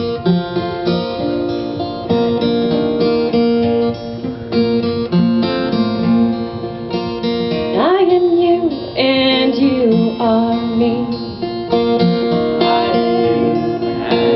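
Kirtan music from a small acoustic group: a strummed acoustic guitar holds steady chords while a melody line slides up into long notes about eight seconds in.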